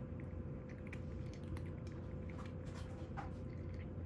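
A cat crunching dry kibble from a bowl: irregular crisp crunches and clicks as it chews. A steady low hum runs underneath.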